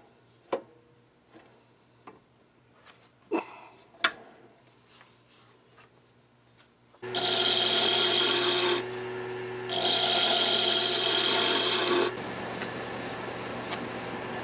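A few sharp knocks and clicks, then about halfway through a wood lathe starts up with a steady hum and a tool scrapes against the spinning small wooden blank in two loud spells, turning it round, before the lathe carries on more lightly.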